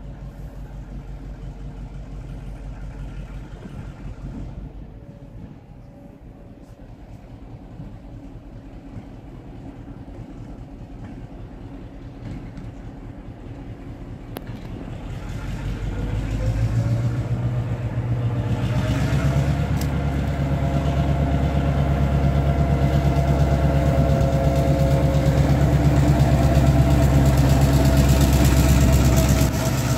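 General Motors 141 Class diesel-electric locomotive No. 146, its EMD two-stroke diesel engine running at low power as it approaches. About halfway through the engine opens up and grows steadily louder, with a whine rising slightly in pitch, and is loudest near the end as the locomotive passes close by.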